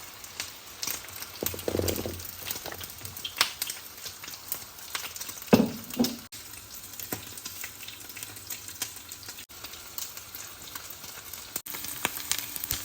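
Boiled pork frying in a pan: a steady sizzle with continual small crackles, and a couple of louder clatters about two and six seconds in.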